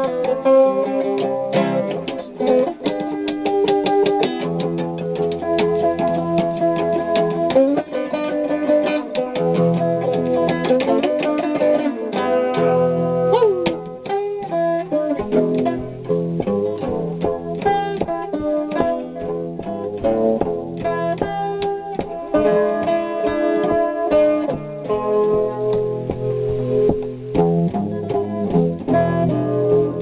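Guitar picked in a hobo-jazz style, an instrumental passage of plucked notes and chords, with a few sliding notes about halfway through.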